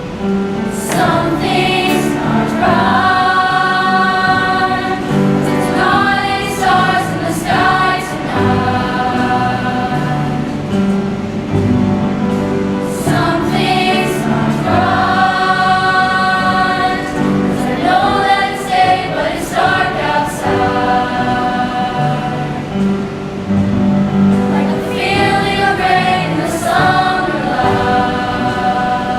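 Music: a choir singing sustained phrases over a steady instrumental accompaniment.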